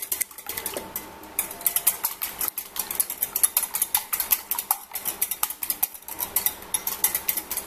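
Wire whisk beating raw eggs in a glass bowl, its wires clicking rapidly and rhythmically against the glass. After a quieter first second or so the whisking picks up into fast, steady clicking.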